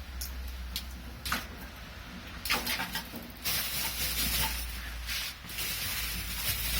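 Gas grill side burner being lit: a few sharp clicks from the igniter, then a hiss of gas flowing from about two and a half seconds in that breaks off briefly near the end and comes back.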